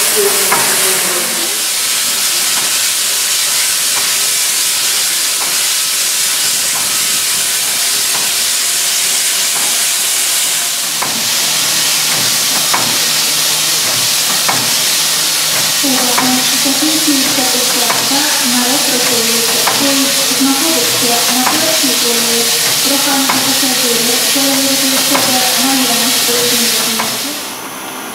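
Steam locomotive venting steam with a loud, steady hiss. In the second half a wavering, warbling tone runs under it, and the hiss falls away sharply just before the end.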